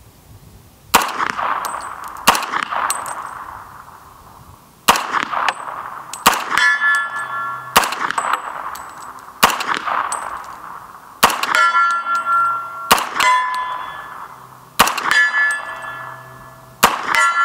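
CMMG Guard .45 ACP pistol-caliber carbine firing about a dozen single shots of 230-grain ball ammo, one to two seconds apart, each shot trailing off in echo. Many shots are followed by the ringing of a steel plate target being hit.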